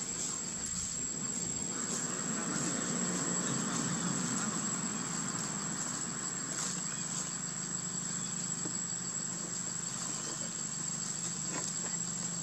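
Insects droning with one steady high-pitched tone, over a low steady hum.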